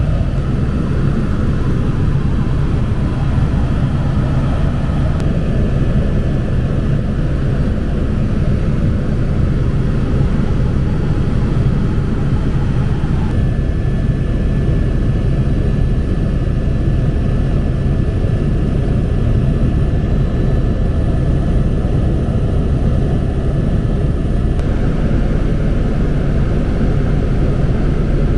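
An aircraft in flight, heard as a steady, loud, low drone of engine and airflow. A thin high tone sits over it through the middle section, and the sound shifts slightly about halfway in and again near the end.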